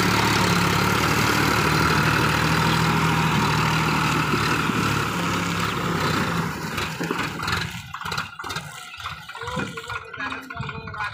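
Sonalika tractor's diesel engine running steadily under load while pulling a rotavator through wet, muddy soil. About seven seconds in the steady engine sound falls away, leaving quieter, uneven noise.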